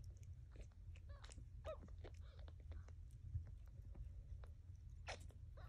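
Mother cat licking her newborn kittens: faint, irregular wet licking and small mouth clicks over a low steady hum.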